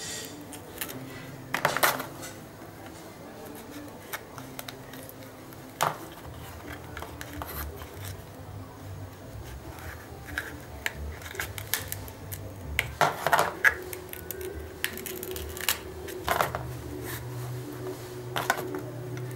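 Small steel knife cutting and scraping into the tough rind of a palmyra palm fruit, in scattered short scrapes and taps, loudest about two seconds in and again around thirteen seconds. A faint, steady low hum runs underneath.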